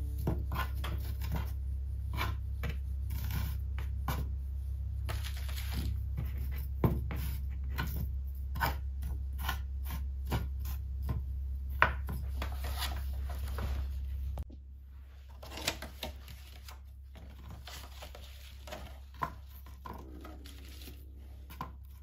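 Scattered clicks and light knocks of objects being handled over a steady low hum. About two-thirds of the way through the hum stops abruptly, and quieter handling clicks carry on.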